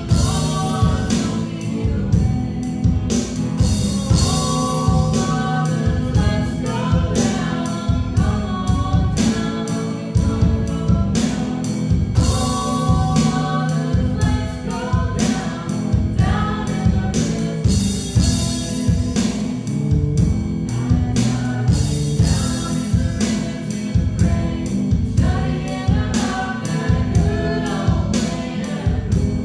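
Worship song: voices singing together over instrumental accompaniment with a steady beat.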